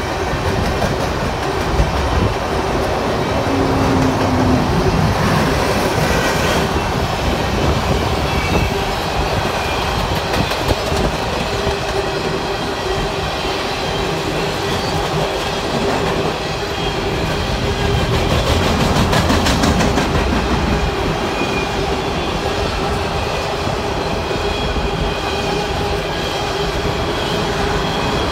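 Long freight train of empty coal cars rolling past, a loud, steady rumble and clatter of steel wheels on the rails.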